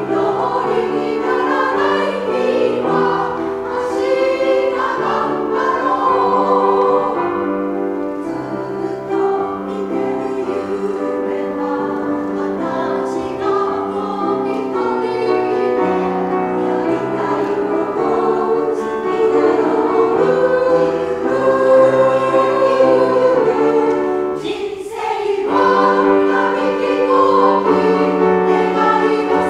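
Women's choir singing in Japanese with piano accompaniment. There is a brief pause between phrases about 25 seconds in.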